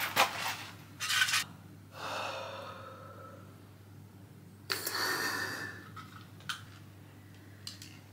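Handling noise with brief rustles and knocks, then a breath out, then the puff of a blue inhaler with a sharp breath in, lasting about a second, just under five seconds in.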